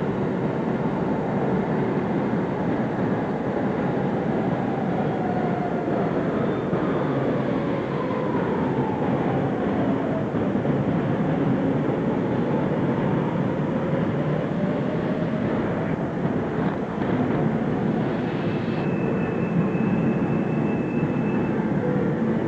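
Steady, dense rumbling noise, like a passing train or vehicle. In the middle a faint tone glides slowly down and back up, and a thin high tone comes in near the end.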